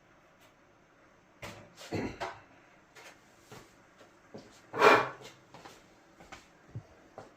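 Scattered knocks and clunks from handling a dryer's sheet-metal cabinet and drum, with one louder thud about five seconds in.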